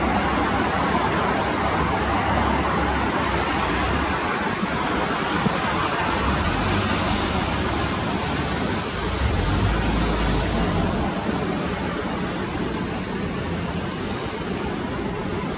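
MiG-29 jet engines, a steady rushing roar with a low rumble underneath that slowly fades toward the end.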